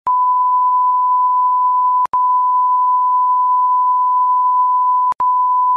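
Steady single-pitch test-card tone, the beep that goes with a 'technical difficulties, please stand by' colour-bars screen. It starts with a click and drops out for an instant twice, with a click at each break, about two seconds in and near the end.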